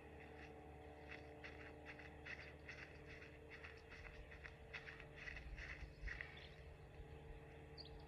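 Faint outdoor field ambience with a quick series of short, high chirps, about two or three a second, from a small animal, and some low rumble about five to six seconds in.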